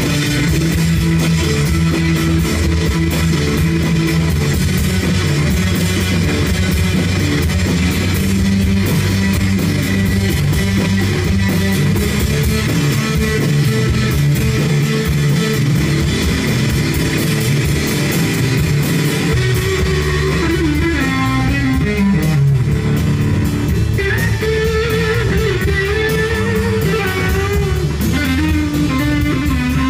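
Live rock band playing an instrumental passage: electric guitar over bass guitar and a drum kit, at a steady loud level with no singing.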